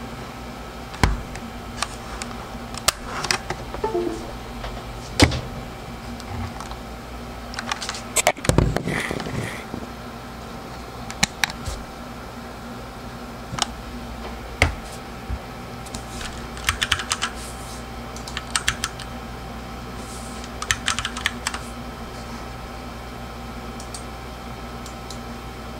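Monstargear MK16BT mechanical keyboard with Cherry switches being handled and pressed. Scattered single sharp key clicks and knocks are heard, with a cluster of heavier knocks about eight to nine seconds in. Short quick runs of key clicks come about two-thirds of the way through.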